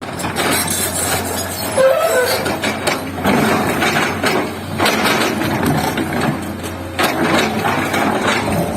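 Komatsu excavator at work: the engine running steadily under repeated irregular metal clanks and knocks, with a brief squeal about two seconds in.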